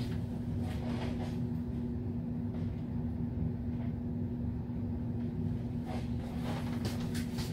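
Steady low mechanical hum with one constant tone, with a few faint clicks and knocks of items being handled.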